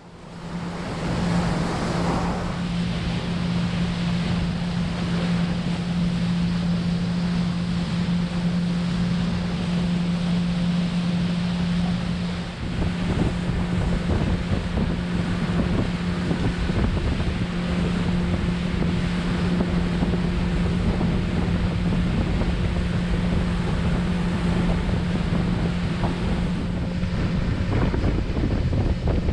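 Pontoon boat under way at speed: the outboard motor drones steadily under heavy wind buffeting on the microphone and water rushing and splashing along the pontoon hull. The sound comes up about a second in and then holds steady.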